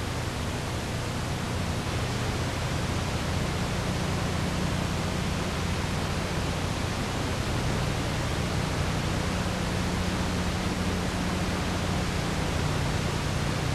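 Steady hiss with a low hum underneath, unchanged across the title card and the exterior shot: the background noise of an old videotape transfer.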